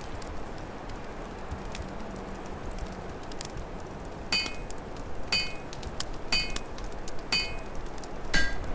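Open fire crackling in a hearth over a low, steady wind rumble. From about halfway in, five ringing metallic clinks come at about one per second.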